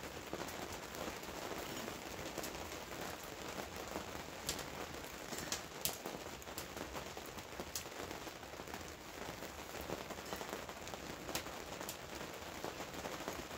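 Steady light water pattering with scattered sharp ticks.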